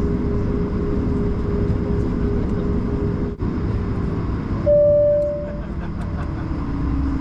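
Steady rumble and whine inside the cabin of an Airbus A220-300 on the ground, with one loud chime that fades over about a second, about four and a half seconds in. After the chime the engine tone settles lower.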